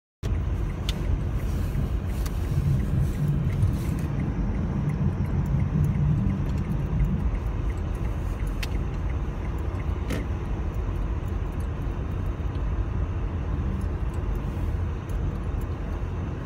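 Motor vehicle noise: a steady rumble of engine and tyres on the road, with a few faint ticks.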